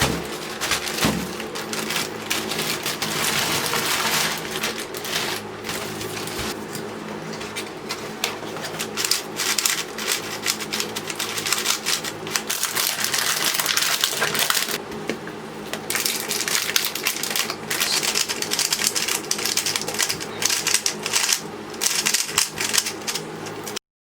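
Puzzle cube being turned rapidly, its plastic layers clicking and clacking in a dense continuous run, over a faint steady hum; it cuts off suddenly near the end.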